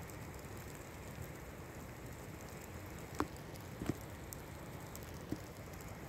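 Open fire burning with a steady hiss and a few sharp crackling pops: two loud ones about three and four seconds in, and a smaller one past five seconds.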